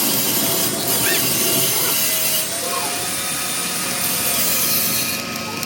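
Steady rasping noise of metal being cut or ground during an excavator track roller rebuild, with a few faint steady tones running underneath.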